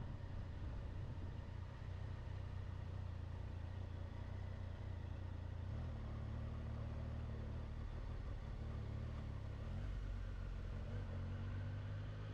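Triumph Tiger 800 XC motorcycle's three-cylinder engine running steadily on the move, a low drone whose pitch shifts slightly about halfway through and again near the end.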